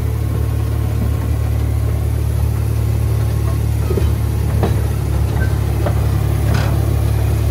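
Land train's engine running with a steady low drone, heard from inside an open passenger carriage as it rolls along, with a few light knocks.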